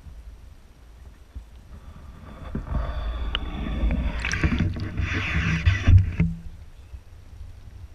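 Water sloshing and splashing as a GoPro camera is pulled up through the water and out of it, after a muffled low rumble underwater. The splashing builds from about two and a half seconds in, is loudest between four and six seconds, and cuts off sharply just after six seconds.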